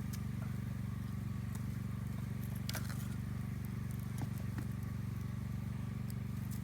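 Campfire crackling: scattered sharp pops, the loudest a little under three seconds in, over a steady low hum.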